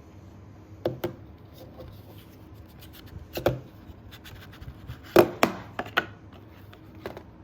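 Hands handling a plastic Blu-ray case: scattered clicks, taps and rubbing, the loudest a pair of clacks a little past the middle.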